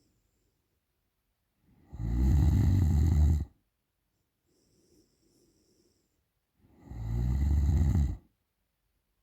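A woman snoring loudly in her sleep: two long snores about five seconds apart, each lasting about a second and a half, with faint breathing between them.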